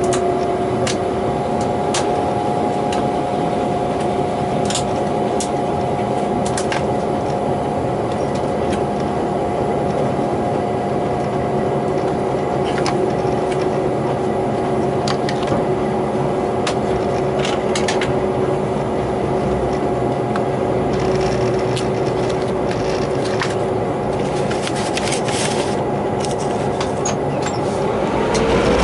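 DQ class diesel locomotive running under way, a steady drone with a held whining tone and scattered sharp clicks. Near the end the whine rises in pitch.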